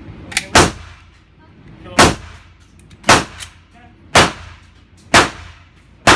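Six pistol-calibre gunshots at a firing range, roughly one a second, each a sharp crack with a brief echo.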